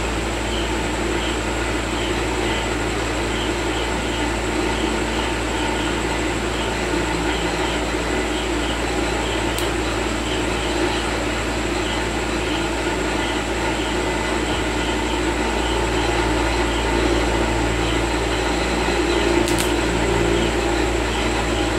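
Steady fan-like drone with a low mains hum and a thin steady high whine, from a single-board IGBT inverter welding machine switched on for testing. Two faint clicks come about ten and twenty seconds in.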